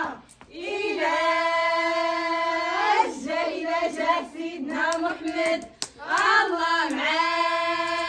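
Berber women singing together, with a long held note about a second in and another near the end, and shorter phrases between them. A few sharp knocks come in the middle.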